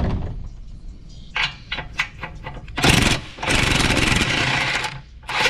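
Power tool run in bursts: one short loud burst about three seconds in, then a longer run of over a second, and another burst starting near the end, with a few sharp clicks before them.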